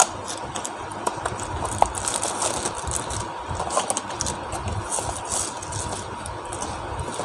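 Crinkling and rustling of plastic packaging bags as bundled cables and a GPS antenna are handled, with irregular crackles, a sharp click a little under two seconds in, and a steady low hum underneath.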